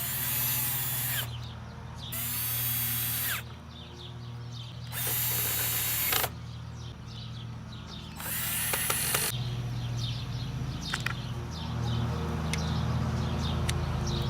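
Electric drill run in four short bursts of a second or so each, its whine rising and falling with the trigger, drilling or screwing into the saw's plastic switch mount. A few light clicks follow.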